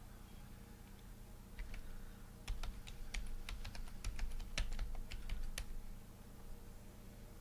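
Computer keyboard being typed on: a run of irregular key clicks lasting about four seconds, starting a little under two seconds in, over a low steady hum.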